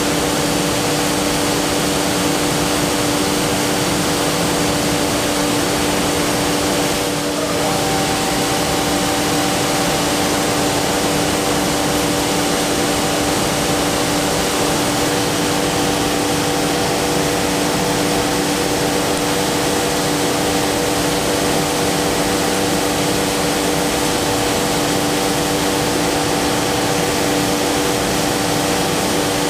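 Busellato Jet Optima C21 CNC working centre running as it machines a door: a steady whirring roar with several steady tones over it. About seven seconds in the sound dips briefly, and a higher tone joins and then holds.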